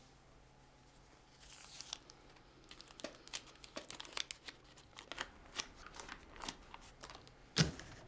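Crinkling of folded paper banknotes being taken out of a jacket pocket and unfolded by hand, a run of sharp rustles and crackles starting about a second and a half in. Shortly before the end a single louder thump.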